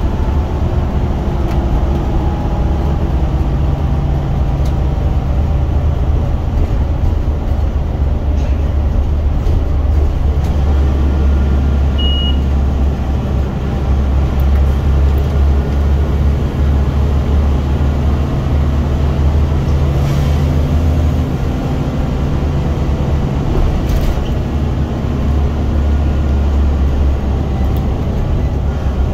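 Scania bus engine heard from inside the saloon, driven hard, its low drone swelling and easing several times as the bus speeds up and slows. A short high beep sounds about twelve seconds in.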